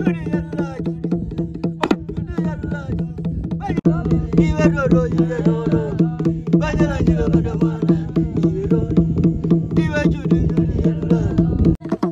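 Hand drum played with fast, steady strokes, its low note ringing under every beat. Voices sing along from about four seconds in. The drumming breaks off briefly near the end.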